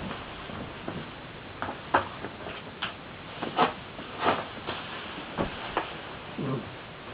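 Scattered light clicks and taps at irregular intervals, with a short low sound near the end.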